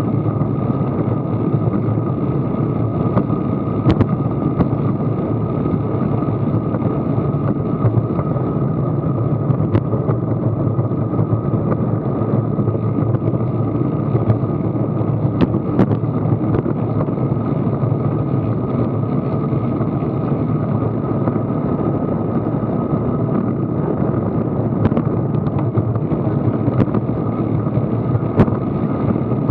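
Steady rushing wind and road noise on an action camera's microphone, moving at about 17 mph, with a few small clicks and rattles scattered through it.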